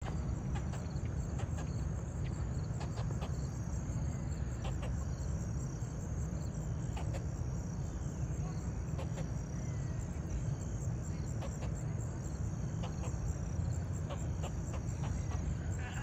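Insects trilling in repeated high-pitched stretches about a second long, over a steady low rumble, with scattered faint clicks.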